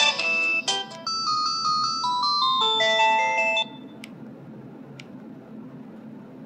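A ringtone melody of bright electronic notes plays from a Samsung SPH-A660 flip phone and stops after about three and a half seconds. Two faint clicks follow, about a second apart.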